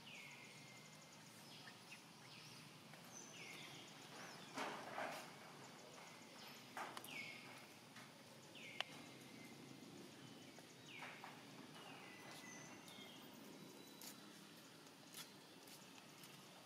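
Faint high-pitched animal calls, each sliding down in pitch and then held briefly, repeating every few seconds over quiet outdoor ambience, with a few soft clicks and one sharp click about nine seconds in.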